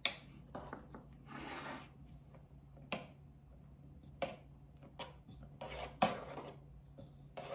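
Small spatula scraping as it spreads cream into a springform cake pan: a few short, soft scrapes with pauses between them.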